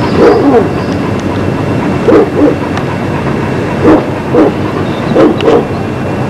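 A dog barking: short barks in loose pairs and singles, about eight in all.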